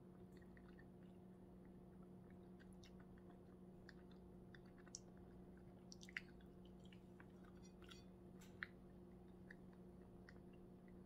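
Faint mouth sounds of a person chewing food: scattered small wet clicks and smacks, a few slightly louder near the middle, over a steady low hum.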